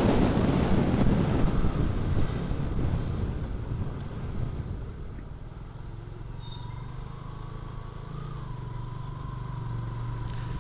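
Motorcycle riding: wind rushing over the microphone, fading over the first few seconds as the bike slows, leaving the steady low hum of the engine. A faint steady whine joins about six seconds in.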